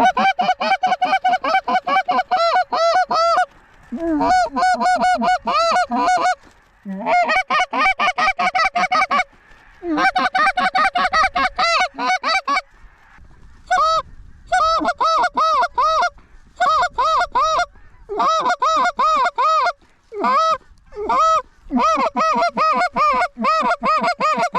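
Canada goose calls blown by hunters: rapid runs of honks and clucks, several a second, in bursts of a few seconds with short pauses between them, calling flying geese in.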